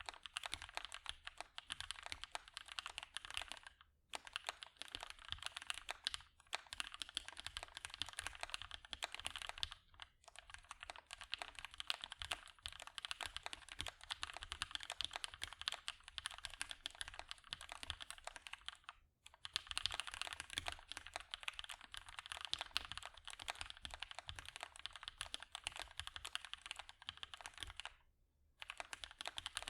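Steady typing on a custom mechanical keyboard with lubed and filmed Gateron Hippo switches on a POM plate under GMK keycaps: a quick run of key presses, broken by brief pauses of about half a second a few times, with a longer one near the end.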